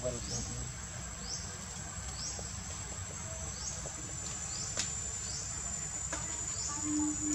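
Insects shrilling: a steady high whine with a short rising chirp repeating about once a second.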